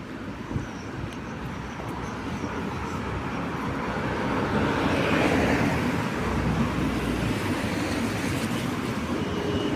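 A road vehicle passing on a wet street: tyre hiss and engine noise swell to a peak about halfway through, then ease off.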